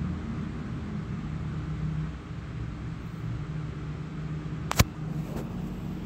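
Steady low background hum and rumble, with a single sharp click a little under five seconds in.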